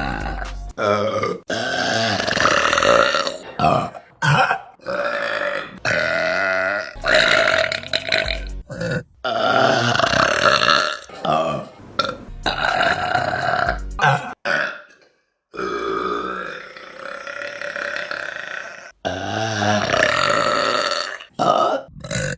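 Women burping in a quick run of separate clips, one after another. Loud, voiced belches of varying pitch, each about one to two seconds long, with abrupt cuts between them.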